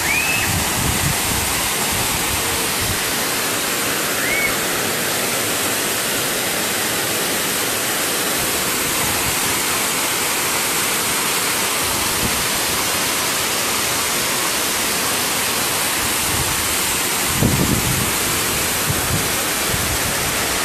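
Waterfall: a steady, even rush of falling water, with two brief high rising chirps in the first few seconds.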